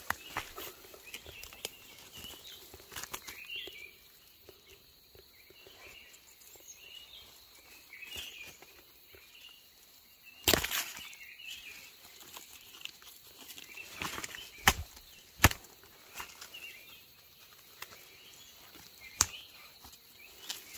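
Faint forest ambience with small birds chirping now and then, broken by a few sharp snaps and crackles of dry twigs and leaf litter under slow, careful footsteps, the loudest about halfway through and three more in the second half.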